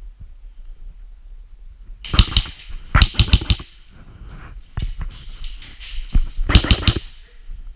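Airsoft guns firing in several short bursts of rapid clicking shots, each burst about half a second long, starting about two seconds in.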